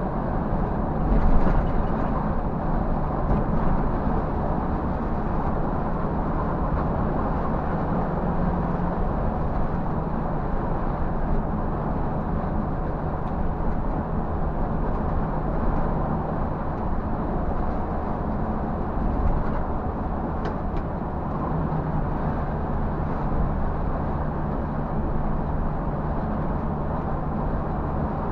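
Scania bus engine and road noise heard from the driver's seat while cruising at highway speed: a steady drone with a low, even engine hum. A brief louder knock about a second in.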